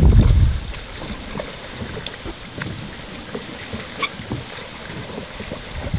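Wind buffeting the microphone, loudest in about the first half second, then settling into a steady hiss with scattered faint clicks.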